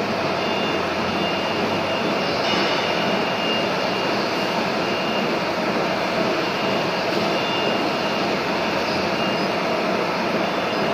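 Steady, unbroken running noise of machinery, with a faint high whine over it.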